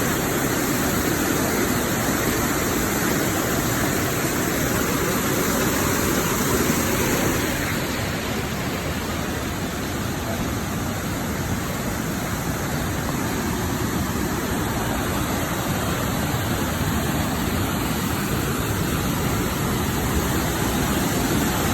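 Waterfall with a steady rush of falling water that eases a little about eight seconds in.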